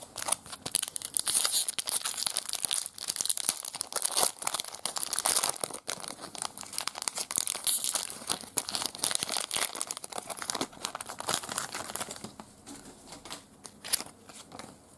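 Foil wrapper of a trading-card pack being torn open and crinkled in the hands, a dense crackle that goes on for about twelve seconds. Near the end it gives way to quieter handling of the cards.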